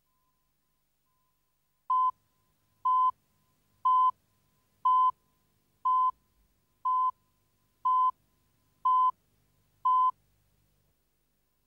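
Countdown leader beeps: nine short, identical high beeps, one a second, marking off the numbers of a video countdown.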